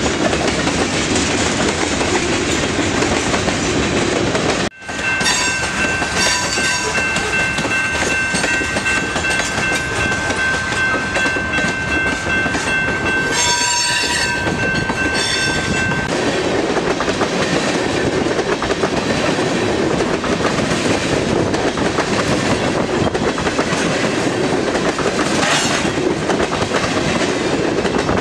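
Freight train cars rolling through a grade crossing, wheels clacking steadily over the rail joints. From about five seconds in until about sixteen, a railroad crossing bell rings steadily over the passing cars.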